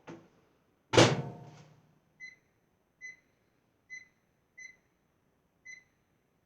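Microwave oven door shutting with a thump, then five short keypad beeps as the cooking time is set to 2 minutes.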